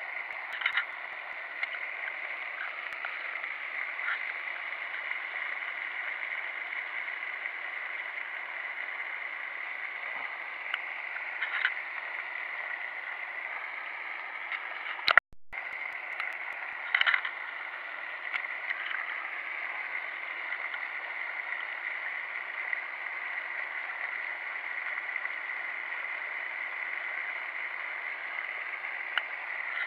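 Steady splashing and rushing of a pond fountain aerator's spray, with a few faint ticks over it and a brief cut-out about halfway through.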